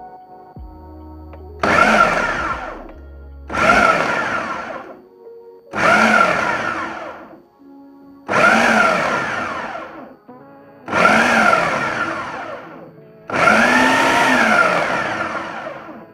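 Ninja 4-in-1 food processor pulsed six times with its dough blade, cutting frozen butter cubes into flour; each pulse starts suddenly, its motor pitch rising and falling, and the later pulses run longer. The pulsing shreds the butter through the flour toward a coarse, sandy mix for pie dough.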